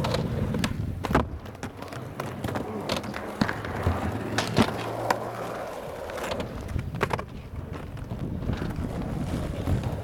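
Skateboard wheels rolling on rough asphalt, a steady low rumble, with several sharp clacks of boards striking the ground spread through it.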